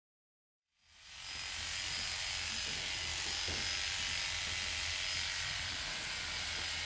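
Corded electric horse clippers running with a steady buzz, fading in about a second in, as they are worked along the mare's poll to trim the bridle path.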